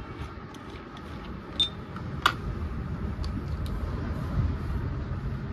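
Light clicks and taps of a T-handle hand tool and small parts against a chainsaw's housing and the floor, about six in all, the sharpest a little past two seconds in, over a steady low rumble.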